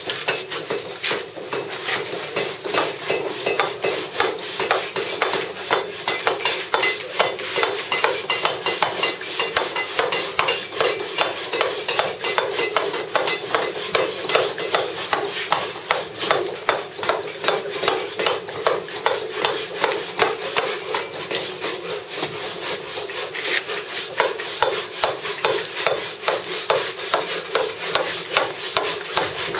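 Claw tool struck with a mallet in quick, steady taps, several a second, its toothed edge chipping a thin final layer off soft Bath stone.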